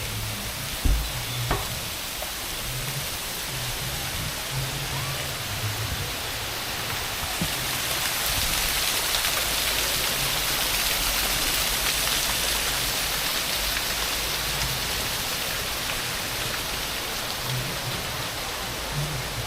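Steady rushing noise of falling water, swelling somewhat louder around the middle and easing off again.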